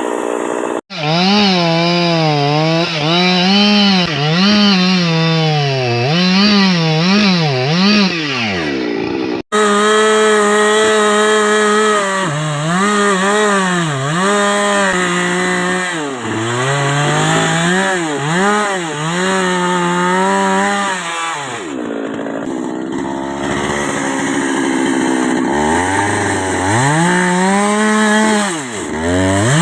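Husqvarna two-stroke chainsaw cutting wood, its engine pitch rising and falling again and again as it is revved and loaded in the cut, settling lower for a few seconds about two-thirds of the way through. The sound breaks off abruptly twice, about a second in and about a third of the way through.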